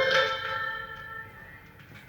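A ringing, bell-like tone that dies away over the first second and a half, leaving only a faint background.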